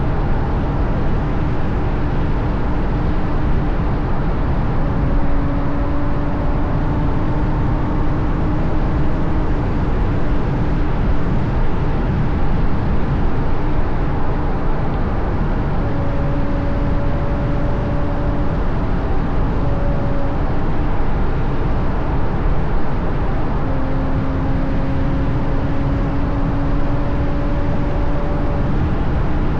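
Ferrari GTC4Lusso V12 with a Capristo exhaust cruising at steady speed, its engine note faint under heavy wind and road noise on an outside-mounted camera, rising gently in pitch a few times.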